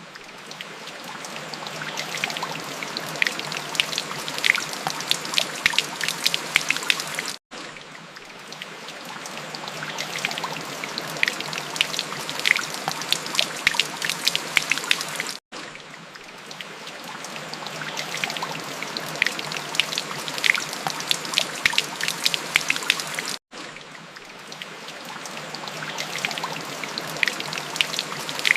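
Steady rain with many distinct drops ticking and splashing. About every eight seconds it cuts out for a split second and then swells back up, as a looped recording does.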